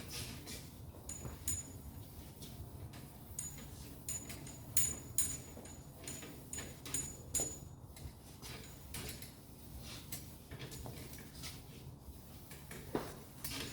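Scattered light clicks, taps and knocks at an irregular pace, with a few brief high squeaks between about one and eight seconds in: objects being handled.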